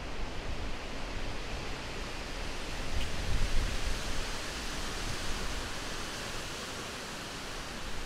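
Wind blowing steadily with a low rumble of gusts buffeting the microphone, strongest about three to four seconds in.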